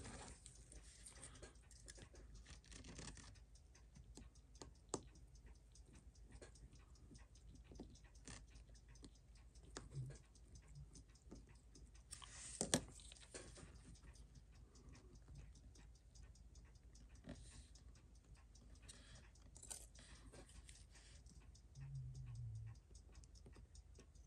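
Near silence with faint small metal clicks of steel tweezers working on a Seiko 6309 automatic watch movement in a movement holder; a sharper click about five seconds in and a louder pair of clicks near the middle.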